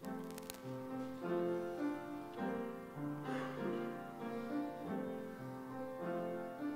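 Keyboard playing the instrumental introduction to a sung evening-prayer psalm: a succession of held chords over a moving bass line, starting abruptly right after the spoken prayer.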